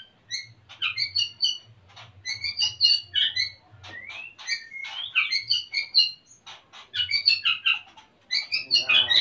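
White-rumped shama (murai batu) singing a fast, varied run of short whistled notes, upward glides and clicks: the song of a male in breeding condition.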